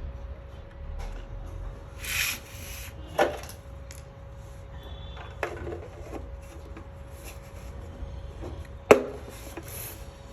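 Hands handling objects on a work surface: a short scrape about two seconds in and two sharp knocks, the louder near the end, over a faint steady hum.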